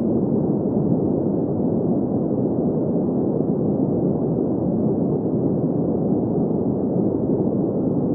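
Steady, unchanging sleep noise: an even, deep hiss with most of its energy in the low and middle range and nothing above about 2 kHz.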